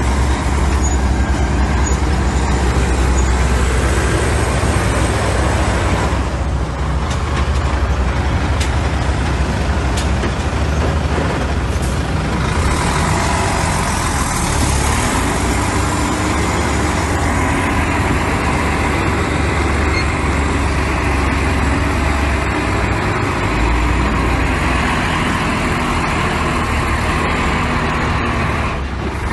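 Heavy diesel engines of dump trucks and a bulldozer running, a loud continuous low drone whose pitch shifts up and down from about halfway through.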